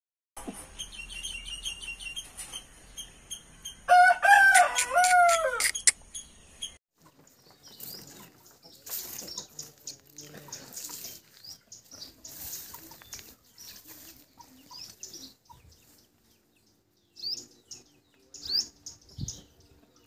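An Aseel rooster crows once, loud, about four seconds in, the call lasting about two seconds over a faint steady high whine. After that come scattered faint rustles and, near the end, a few short high chirps.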